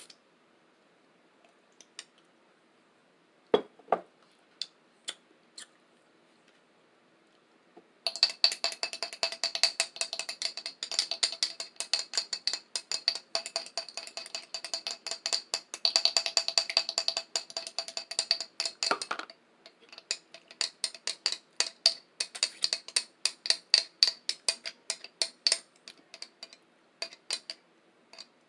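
Tapping on a plate, each tap ringing with the same few tones. A few scattered light taps at first, then very fast, continuous tapping from about eight seconds in for some eleven seconds, then slower, separate taps near the end.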